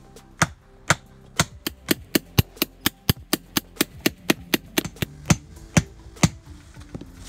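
Hammer striking the top of a Hunza Super Spike ground stake, driving it into the soil. A run of sharp knocks, about four a second at its quickest, slows and stops a little after six seconds in.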